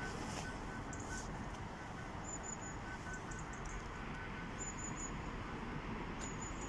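Steady hum and hiss of an Avanti West Coast Class 390 Pendolino electric train standing at the platform. A faint high beep pulses on and off through the first few seconds, and short high chirps come in three quick groups about two seconds apart.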